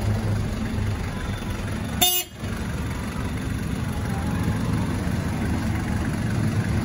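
Mazda Titan truck's WL four-cylinder diesel engine idling steadily, with a brief click and a momentary drop in sound about two seconds in.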